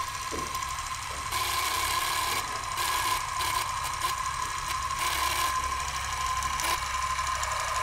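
Old film projector sound effect: a steady mechanical whir and rattle with a constant high whine and scattered crackles.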